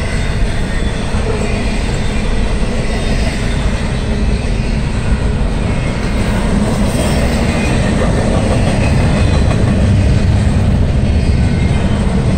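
Double-stack intermodal freight train's loaded well cars passing at speed, a steady noise of steel wheels running on the rails.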